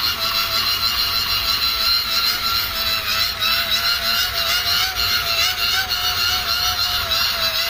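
Hand-cranked blower whirring steadily as it is cranked, its whine wavering slightly in pitch with the cranking speed, over a fast light ticking from the gears. It is blowing air into the charcoal of a small barbecue grill to get the coals burning.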